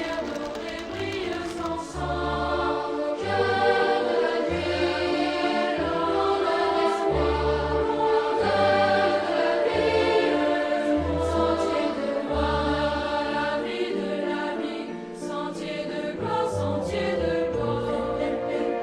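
Music: a choir singing held notes over a low bass line that moves in steady steps about once a second.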